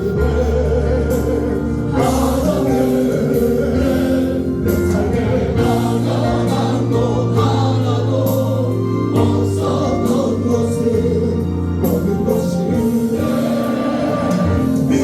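A Christian praise song sung by a group of voices with instrumental backing, steady and loud.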